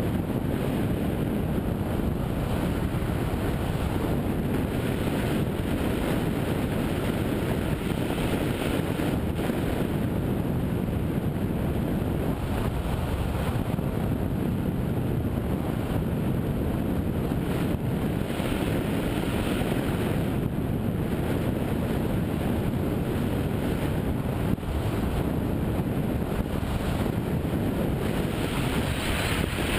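Steady wind noise from air rushing over the microphone of a camera mounted on a hang glider in flight, with a few brief surges of hiss.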